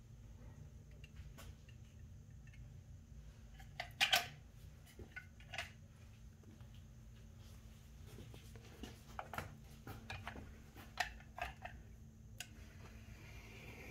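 Quiet room with a steady low hum, broken by scattered light clicks and taps; the loudest is a short cluster about four seconds in, with more a few seconds before the end.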